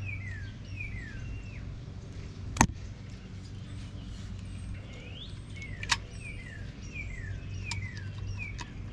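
A bird repeating short falling chirps, about two a second, in a short run at the start and a longer one in the second half, over a steady low hum. Two sharp clicks cut in, the louder one about two and a half seconds in, as the wheel hub is handled.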